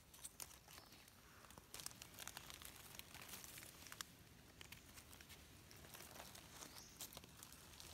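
Faint rustling and crackling of dry leaf litter as mushrooms are picked and handled, with scattered small clicks.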